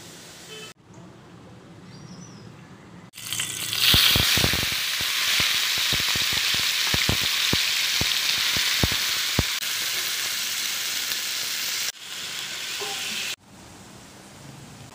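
Small shrimp frying in hot oil in a wok: a loud, dense sizzle with sharp popping crackles. It starts suddenly about three seconds in, with the pops thickest over the next few seconds, and cuts off abruptly a few seconds before the end.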